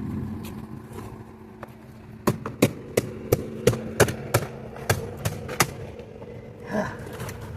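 A quick run of about ten sharp knocks, roughly three a second, starting about two seconds in, over a steady low hum. They come while a stubborn part is being worked loose from a piece of scrap.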